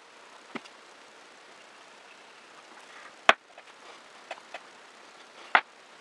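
About five sharp clicks of a hair straightener's plates closing on wig hair and being handled, the loudest about three seconds in, over a steady faint hiss.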